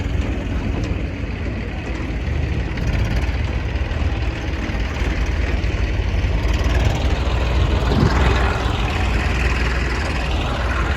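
Heavy diesel engine running steadily, growing louder for a few seconds from about six seconds in.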